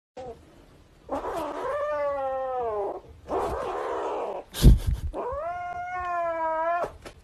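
Cat yowling in long, drawn-out moans, with a rough growl between them, while a hand touches it and the plush toy it is clutching: a cat guarding its toy. A loud thump comes a little past halfway.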